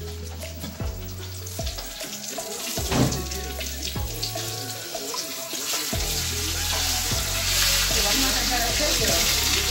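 Chiles rellenos frying in a pan, a steady sizzle that grows louder about seven seconds in. A single sharp knock comes about three seconds in.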